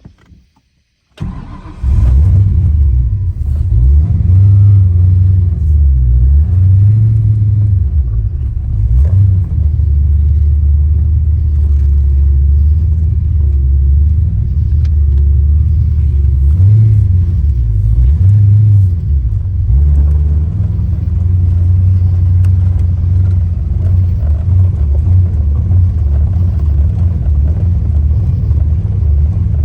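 Ford Fox-body Mustang engine starting after a very brief crank about a second in, then running loudly and steadily, with its pitch rising and falling in a few places.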